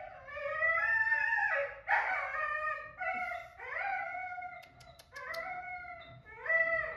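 Baby macaque whimpering: a run of high, wavering cries, each gliding up and down in pitch, with short breaks between them. A few faint clicks come about two-thirds of the way through.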